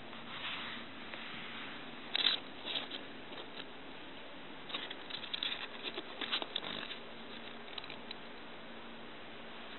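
A puppy's paws scrabbling and pattering on carpet in short scratchy bursts, twice early and then in a busier run of scuffles past the middle, over a faint steady hum.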